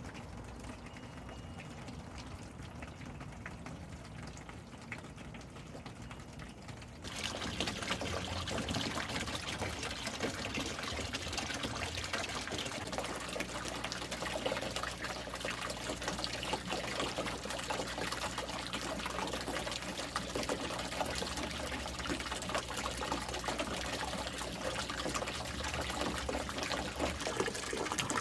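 Water pouring and trickling steadily; the sound becomes louder and brighter about seven seconds in.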